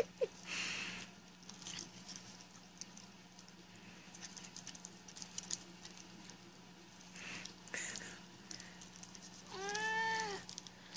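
A cat chewing and tearing at a jerky treat stick, faint scattered clicks and scrapes. Near the end, one meow that rises and falls in pitch.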